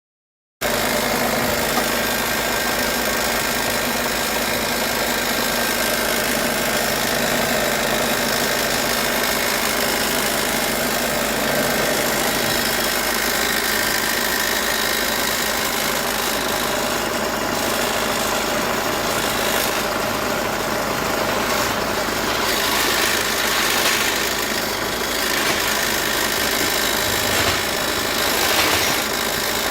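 Peugeot 5008's 2.0 HDi four-cylinder turbodiesel idling, with a vibrating noise that comes from a loose heat shield on the engine. The sound cuts in suddenly about half a second in and runs steadily.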